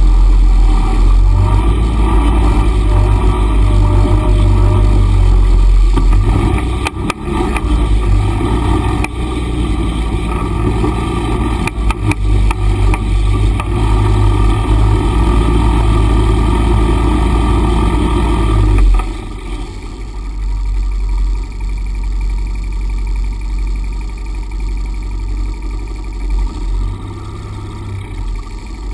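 Honda Pioneer 500 side-by-side's single-cylinder engine running under load on a rough dirt trail, with a few sharp knocks from bumps. About two-thirds of the way through it drops to a quieter, lower run as the vehicle eases off.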